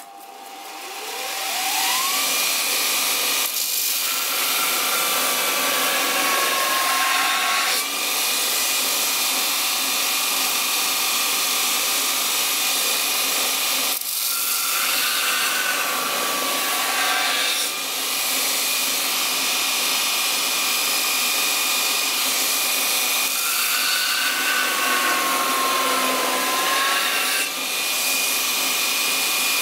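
A 6-inch bench grinder with a belt linisher attachment spins up, its whine rising over the first two seconds, then runs steadily. Three times a steel chainsaw bar's rails are pressed against the sanding belt to dress them flat. Each pass adds a rougher grinding noise and pulls the motor's pitch down under the load.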